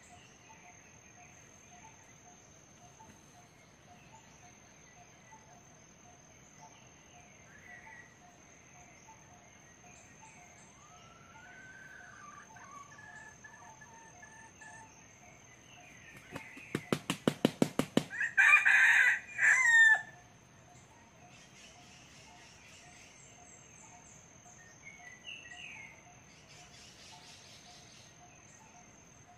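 A red junglefowl rooster beats its wings in a quick run of claps, then gives one short crow, about two-thirds of the way in. The rest is quiet forest background with a faint steady high insect tone.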